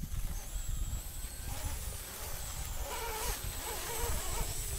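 Axial SCX10 RC crawler climbing a sandy rut, its electric motor and gears whining faintly with a thin steady high tone, under a low rumble of wind on the microphone.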